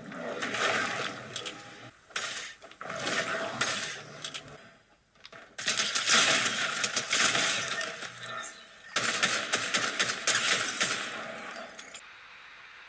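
Mobile shooter game sound effects: several loud bursts of dense metallic clattering and clicking, each a few seconds long, with short gaps between them. The audio thins out near the end.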